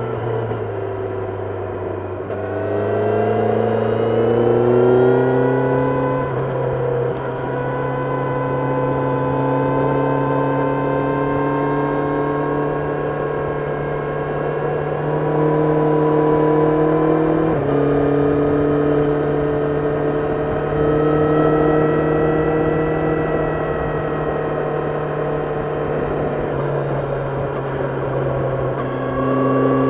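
Kawasaki Ninja 1000SX's inline-four engine heard on board while riding: the pitch dips, then climbs under throttle, and drops suddenly a few times at gear changes before settling into a steady pull with small throttle changes.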